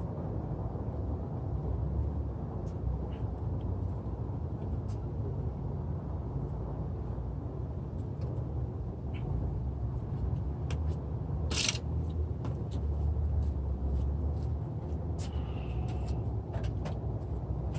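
A steady low rumble, with scattered light clicks and knocks over it and one louder knock about twelve seconds in.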